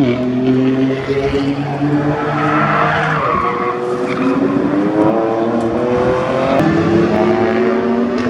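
Track car engine downshifting as it brakes into a chicane, with tyres squealing. It then accelerates away, its engine note rising steadily through the gears.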